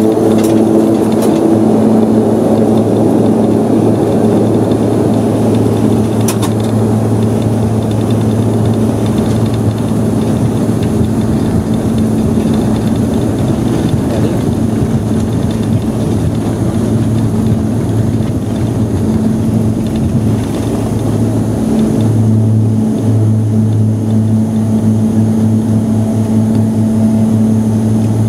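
Saab 2000 turboprop heard from inside the cabin during its take-off run and lift-off: its two Rolls-Royce AE2100 engines at take-off power give a loud, steady propeller drone, a deep hum with a second tone above it, over a rushing noise.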